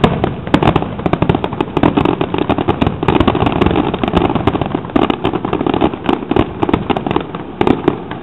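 Aerial fireworks going off close by in a dense barrage: rapid bangs and crackles overlapping many times a second, stopping near the end.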